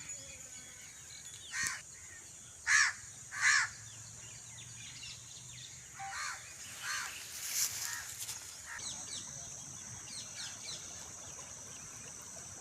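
Crows cawing outdoors: three loud caws in the first four seconds, then fainter ones about six to eight seconds in, over a steady high-pitched drone that gets stronger in the second half.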